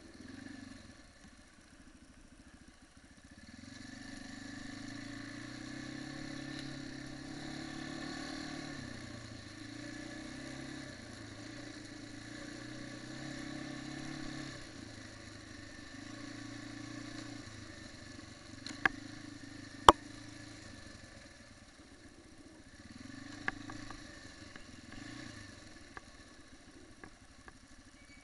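Quad bike (ATV) engine running at low, varying revs, its pitch rising and falling gently as it drives. A few sharp knocks sound in the second half, the loudest about two-thirds of the way through.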